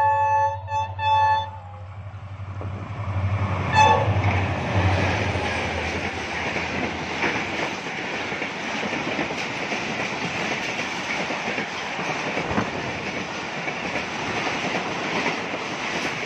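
Diesel locomotive of the Rehman Baba Express, an HGMU-30, sounding its horn as it comes in at speed: one held blast broken by brief gaps, then a single short toot about four seconds in as it passes, its engine hum fading soon after. Then the passenger coaches rush past, wheels clattering on the rails.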